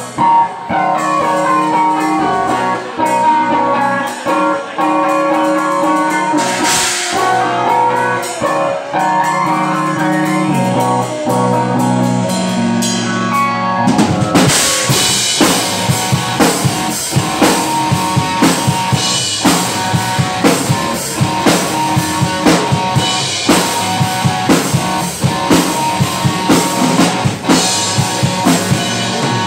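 Live rock band playing on electric guitar, bass guitar and drum kit. For the first half the guitar and bass carry held notes over light drums; about halfway through the drummer comes in with a full, steady beat and cymbals.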